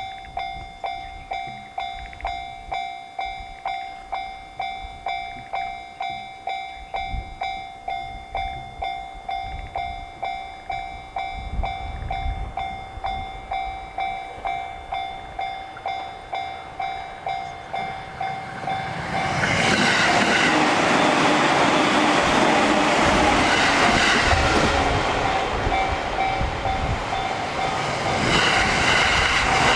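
Japanese level-crossing alarm bell ringing its steady 'kan-kan' strikes, about one and a half a second. About twenty seconds in, a JR Sobu Line train reaches the crossing and runs past, its loud wheel and running noise burying the bell.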